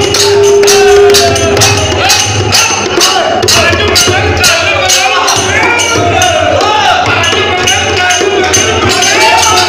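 Festive group singing over a crisp percussion beat, about three strokes a second, with crowd voices and shouts mixed in; a note is held for about the first two seconds.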